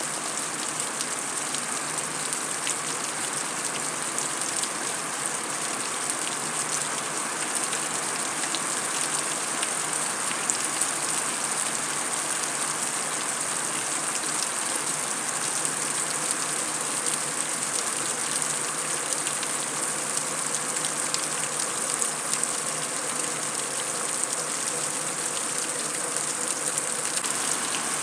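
Heavy rain falling steadily on concrete: a dense, even hiss of countless drops pattering on the hard surface, with no thunder heard.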